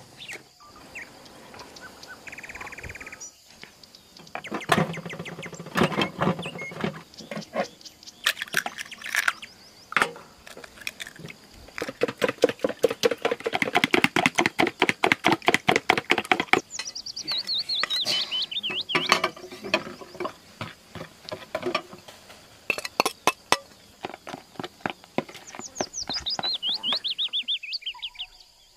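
A utensil stirring and beating a fruit mixture in a bowl: rapid runs of clinks and scrapes against the bowl, fastest and most even about halfway through. Birds call over it twice, in falling runs of chirps, near the middle and again near the end.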